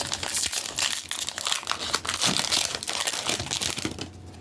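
Foil Pokémon booster pack wrapper crinkling and rustling as it is handled and opened by hand.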